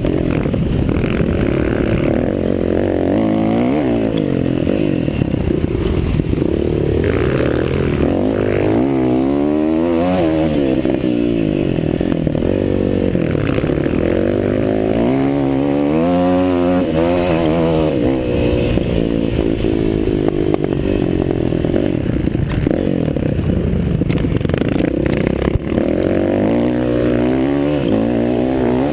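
Several motocross bikes racing. Their engines rev up and drop off again and again through the gears, and the overlapping engine notes keep rising and falling in pitch.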